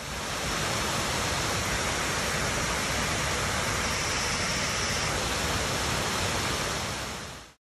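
Waterfall pouring into a rocky pool: a steady rushing hiss that fades in at the start and fades out near the end.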